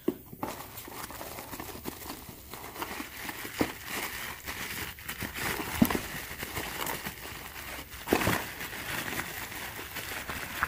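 Packaging crinkling and rustling as new piston rings are unpacked and handled, with scattered light clicks and a sharper knock about six seconds in.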